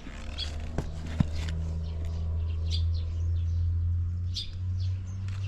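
Suzuki RGV Gamma 250 SP's two-stroke V-twin running steadily at low revs through a Sugaya street chamber exhaust, a low even note that steps up slightly near the end. Its replacement engine shows no abnormal noise. Small birds chirp over it.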